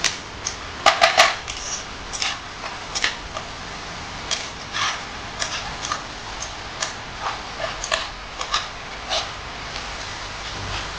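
A cooking utensil scraping and knocking against a pot as masala is stirred and fried. The clinks and scrapes are irregular, several a second, and a loud cluster comes about a second in.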